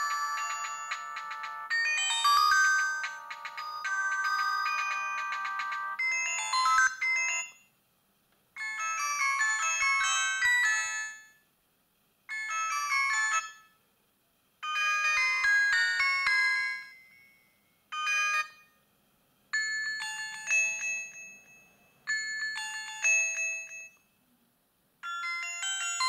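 Built-in ringtones of an Alcatel 2057 flip phone playing from its speaker as they are previewed one after another in the ringtone menu. One melody plays for the first seven seconds or so, then a string of short melodies follows, each cut off after a second or two with a brief silence before the next.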